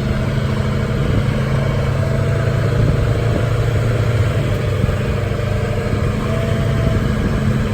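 Tour tram's engine running steadily, a constant low hum heard from on board the vehicle.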